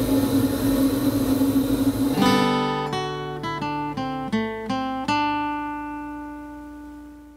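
Steady hum of the Glenwood Econo Flame 7520 waste-oil burner running, cut off about two seconds in by an acoustic guitar jingle: a quick run of strummed chords, the last one ringing out and fading away.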